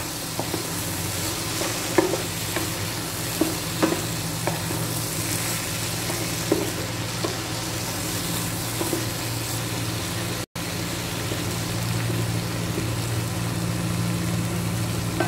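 Vegetables and paneer with sauce sizzling in a non-stick frying pan on high heat while a spatula stirs them, with scrapes and knocks of the spatula against the pan through the first several seconds. A steady low hum from the induction cooktop runs underneath, and the sound cuts out for an instant about ten seconds in.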